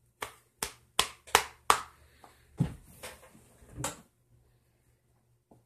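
A jumbo deck of playing cards being worked by hand: five sharp slaps of the cards at about three a second, then two duller thumps.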